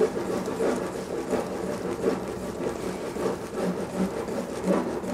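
Wire balloon whisk stirring cake batter in a glass bowl: repeated scraping and rattling of the wires against the glass in uneven strokes. The whipped egg whites are being mixed into the yolk batter.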